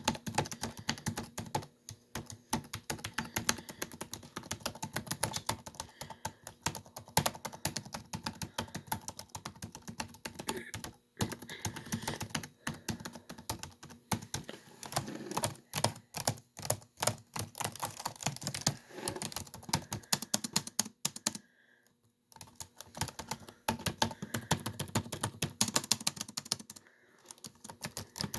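Laptop keyboard typing: fast runs of keystroke clicks, with a few short pauses, the longest about three quarters of the way in.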